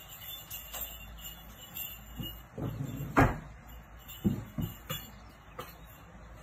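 A handful of short, sharp knocks and clicks, the loudest about three seconds in.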